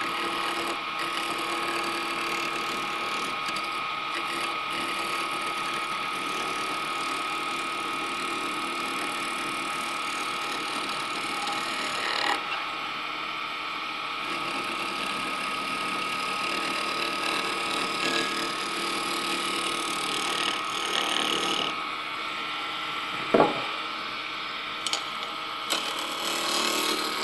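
Wood lathe running while a turning tool cuts a spinning wooden sphere, a steady whir with a constant tone. The cut is nearly continuous, with hardly any interrupted-cut chatter: a sign the sphere is close to round. A single sharp knock comes about 23 seconds in.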